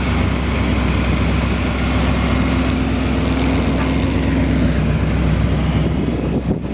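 Rebuilt 350 small-block V8 of a 1969 Corvette idling steadily through stock cast exhaust manifolds rather than headers. It dips briefly near the end.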